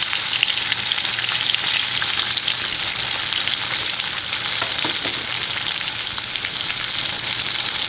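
Breaded chicken breasts shallow-frying in about a quarter inch of hot oil in a cast iron skillet: a steady sizzle with many small pops and crackles.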